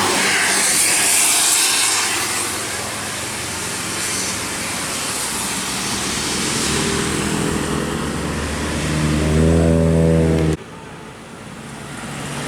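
A bus passing with its engine and road noise, a hiss in the first two seconds, then a multi-note 'basuri' telolet air horn sounding from about seven seconds in. It swells in stepping notes and cuts off suddenly about ten and a half seconds in.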